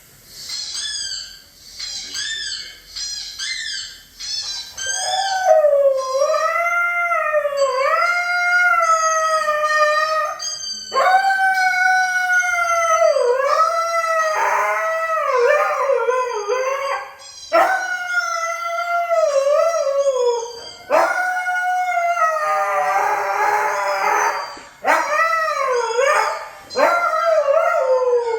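Husky howling: a few short, high whines at first, then about five seconds in a run of long howls, each lasting a few seconds and wavering up and down in pitch.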